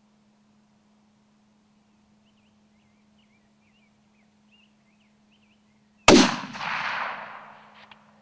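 A single .308 rifle shot from a Remington rifle, one sharp crack about six seconds in, followed by an echoing tail that fades away over the next two seconds.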